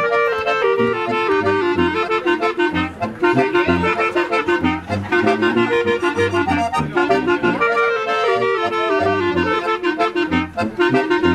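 German oompah band playing live: tuba keeping a steady bass under accordion, clarinet, tenor horn and trumpets carrying the tune.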